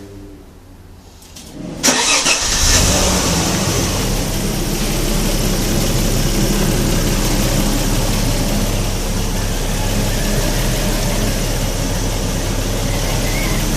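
Alfa Romeo GTV V6 engine starting about two seconds in, catching at once and settling into a steady idle.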